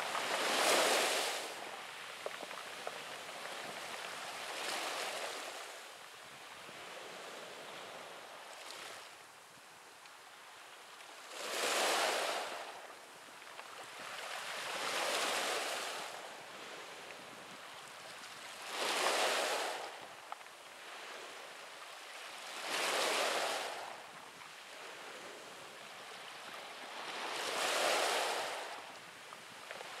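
Small sea waves breaking and washing up over a pebble beach, each surge swelling and fading away, about seven of them at uneven intervals of a few seconds, over a steady hiss of water.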